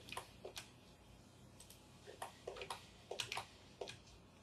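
Faint, irregular clicks of a computer mouse and keyboard: mouse-button presses, scroll-wheel turns and key presses.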